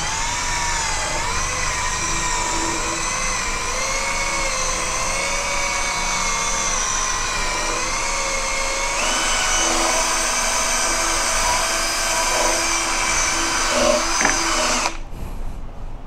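INGCO cordless drill spinning a foam polishing pad to buff a scooter's painted front fender: a steady motor whine whose pitch wavers, shifting about nine seconds in, and cutting off suddenly about fifteen seconds in.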